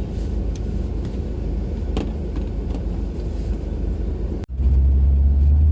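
Honda CR-V driving: a steady low rumble with a few faint clicks. About four and a half seconds in it breaks off abruptly and is replaced by a louder, steadier low hum.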